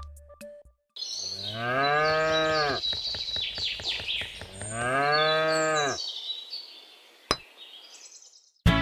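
A cow mooing twice, two long calls each rising and then falling in pitch, about three seconds apart. A single sharp click follows near the end.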